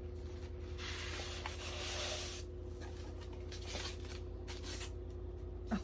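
Packaging rustling as an item is unwrapped from its box. The rustling starts about a second in and lasts about a second and a half, with a few faint handling clicks after it and a steady low hum underneath.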